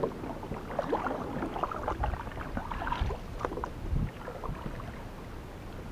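Kayak paddling: splashing and dripping water with small knocks, and two dull thumps about two and four seconds in, dying down near the end.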